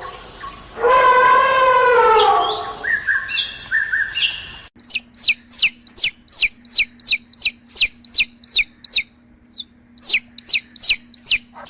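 A drawn-out animal call, wavering and falling in pitch, then a bird repeating a short falling chirp about three times a second, with a brief pause near the end.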